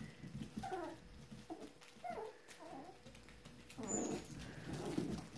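Five-week-old Italian Greyhound puppies playing, giving several short, faint squeaky yips and whines, the loudest about four seconds in.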